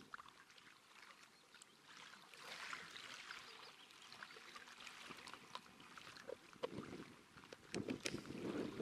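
Small waves lapping faintly on a pebble shore, with scattered light clicks and rustles from hands handling fishing tackle and bait. The wash grows louder near the end.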